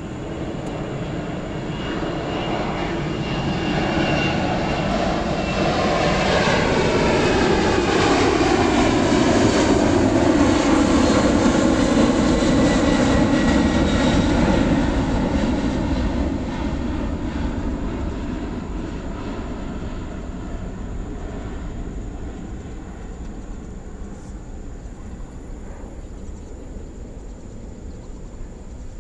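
Boeing 747's four jet engines at takeoff-climb thrust as the airliner passes by: the sound builds to a peak about halfway through, then fades, with the engines' whining tones sliding down in pitch as it goes past.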